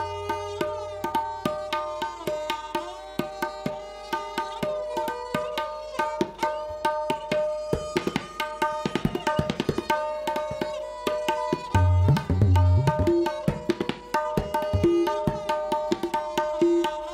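Tabla solo: rapid strokes on the tuned right-hand drum (dayan), ringing at a steady pitch, with a dense fast flurry about eight seconds in. Deep bass strokes on the left-hand drum (bayan) sound at the start and come back in from about twelve seconds.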